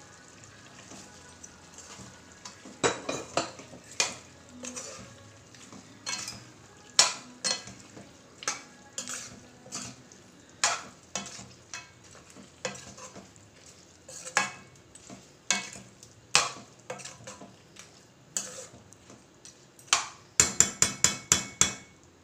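Metal ladle stirring thick duck curry in an aluminium pot, clinking and scraping against the pot's sides every half second to a second. Near the end comes a quick run of sharp clinks.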